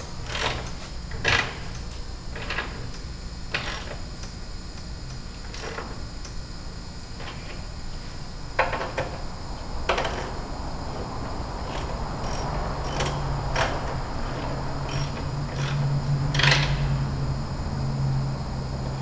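Irregular metal clicks and knocks from hand-tool work on a granite vanity's adjustable leg support as it is set for height. A low steady hum comes in about two-thirds of the way through.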